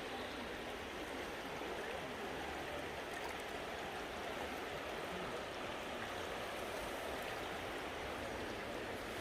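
A river flowing, a steady even rush of water with no breaks.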